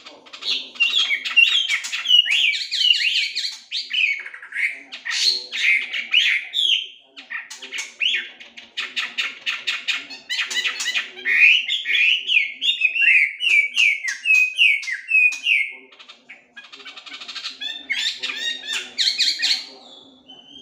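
Chinese hwamei (melodious laughingthrush) singing a long, varied song: loud whistled phrases that slide up and down, mixed with fast trills and harsher chattering notes, with short pauses about 7 and 16 seconds in.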